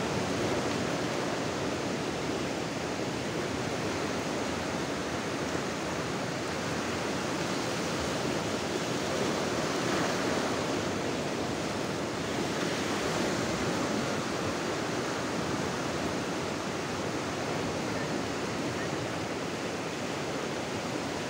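Sea surf: small waves breaking and washing over a shallow sandy beach, a steady rush with a slight swell about halfway through.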